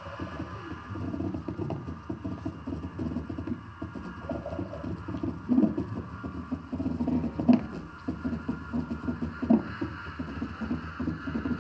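Experimental electronic sound-art texture: irregular crackling and rumbling with scattered sharp clicks over a faint steady high hum.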